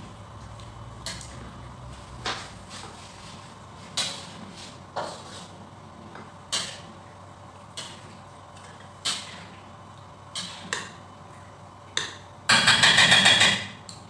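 Metal spatula knocking and scraping against a wok while stirring, sharp clanks about once a second, then a louder burst of rapid clattering lasting about a second near the end.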